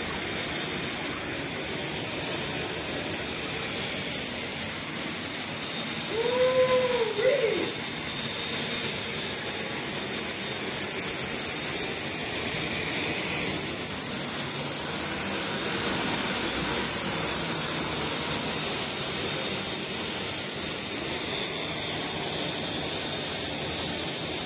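Small model gas-turbine engine of a Burgen turbine RC helicopter running on its first start-up, a steady rushing jet hiss under a strong high-pitched whine. The whine creeps up in pitch over the first half and then holds steady.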